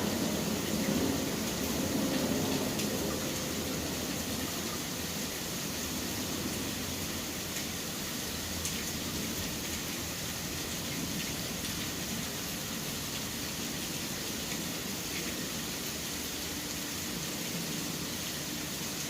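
Steady rain falling, an even hiss with faint scattered drop ticks. A low traffic rumble fades out over the first few seconds.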